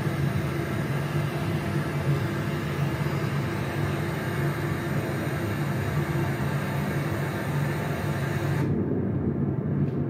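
Space-ambience 'moon sound' for Hi'iaka, a moon of Haumea, played back through a screen's speakers: a steady low rumbling hum with a hiss over it. About nine seconds in, the hiss drops away and leaves only the low hum.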